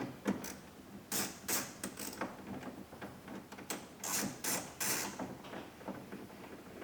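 Hand ratchet with a 10 mm socket clicking through a series of short strokes as it drives a bolt back in.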